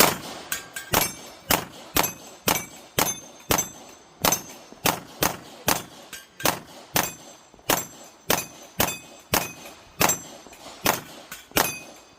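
A CZ TS2 pistol firing a steady string of shots, about two a second, with steel target plates ringing after many of the hits.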